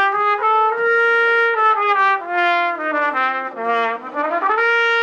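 B-flat trumpet playing a short solo phrase of separate notes that step down and climb back up, ending on a long held note.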